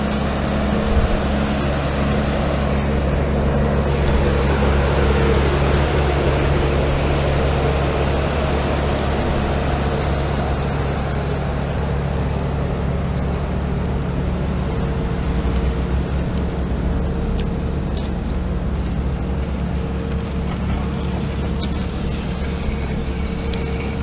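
Large tractor's diesel engine running steadily at a constant speed.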